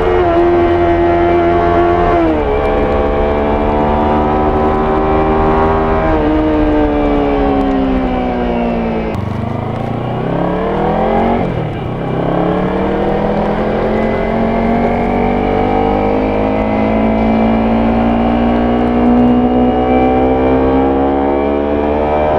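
Kawasaki Ninja 300's parallel-twin engine and exhaust under way. Revs drop sharply at upshifts about two and six seconds in, then sag as the bike slows around the middle. From there the revs climb slowly and steadily in one gear until another upshift at the very end.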